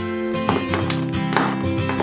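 Background music: an instrumental tune with a new note struck about every half second.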